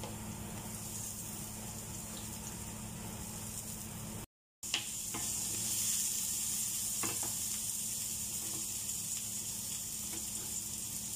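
Garlic sizzling in hot oil in a nonstick pan. The sound cuts out briefly about four seconds in, then returns louder as onions and ginger fry, with a few light knocks of a spatula stirring them.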